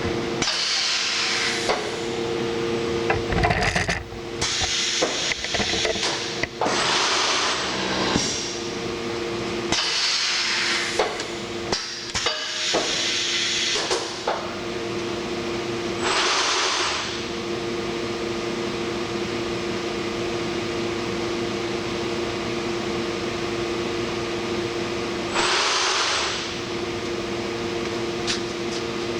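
Sencorp 2500 roll-fed thermoformer running through its cycle: a steady two-tone machine hum, with repeated one-second bursts of air hiss from its pneumatic valves and air cylinders, and sharp mechanical clunks and knocks.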